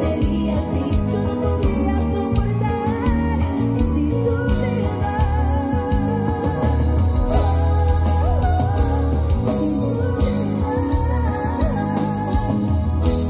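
Live Tejano band performing with a woman singing lead into a microphone, with drums and keyboards under her. The voice holds long notes with a wavering pitch over a steady bass and cymbals.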